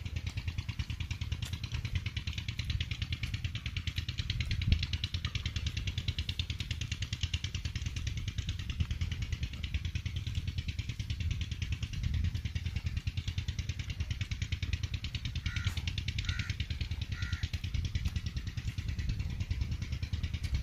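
An engine running steadily at idle, with a fast, even pulse. A few short high chirps come about three-quarters of the way through.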